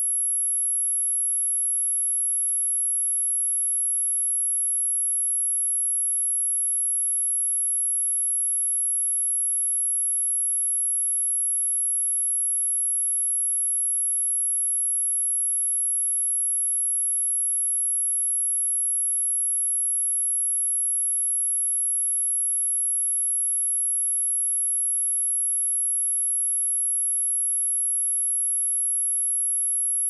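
A single, steady 11,191 Hz sine-wave speaker test tone: one continuous, very high-pitched pure tone.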